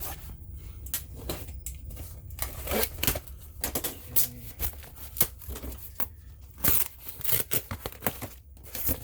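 Cardboard shipping box being opened and its contents handled: irregular knocks, scrapes and rustles of cardboard and packing.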